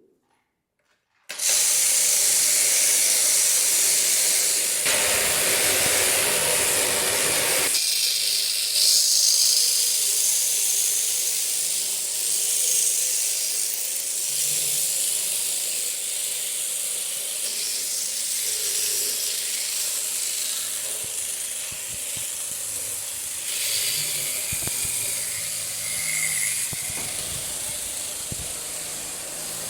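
Electric sheep-shearing handpiece switching on about a second in and running steadily with a loud hissing buzz as it shears the fleece off a sheep.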